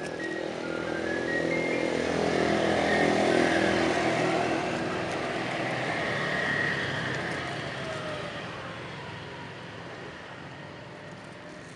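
A motor vehicle driving past: its engine sound swells to a peak a few seconds in, then drops in pitch and fades away slowly.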